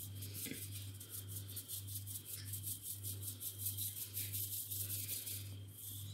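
Fine-mesh metal sieve tapped with a utensil to dust icing sugar over a cake: a quick, even run of light metallic rattling taps.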